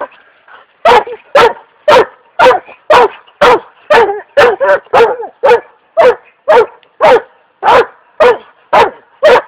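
Weimaraner barking repeatedly and loudly, a steady string of short barks about two a second, starting a little under a second in.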